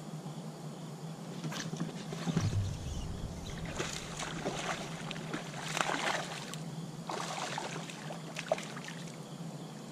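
Water splashing in short bursts as a hooked bass thrashes at the surface, with a dull thump about two seconds in and a steady low hum underneath.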